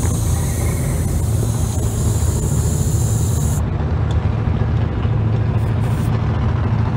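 Car engine idling nearby, a steady low rumble. A high hiss stops about three and a half seconds in.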